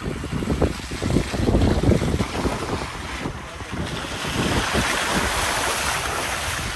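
Wind buffeting the microphone over the low rumble of an open safari jeep driving on a rough jungle track. The rumble comes in uneven jolts at first, then gives way to a steadier rush of air about four seconds in.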